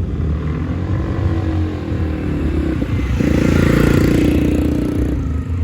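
Two-stroke Lambretta scooters riding past. One scooter's engine passes close, rising to its loudest about three seconds in and dropping away sharply about two seconds later, over the steady running of the others.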